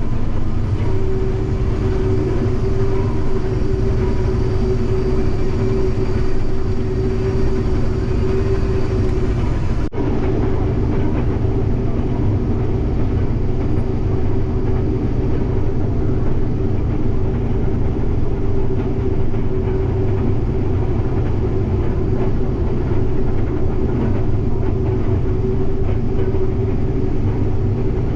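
Heavy vehicle engine running steadily with a deep rumble and a constant hum, with a brief break about ten seconds in where the sound is cut and picks up again.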